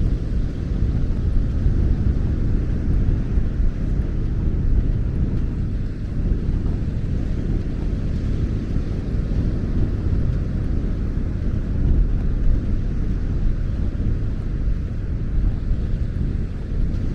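Strong sea wind buffeting the microphone in a constant, fluttering low rumble, over the rush of North Sea surf on the beach.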